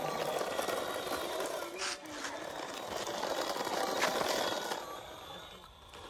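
Small electric motors of a toy RC stunt car whirring as it drives and tumbles, its plastic wheels rattling and scraping on rough concrete, with a few sharper knocks. It grows quieter near the end.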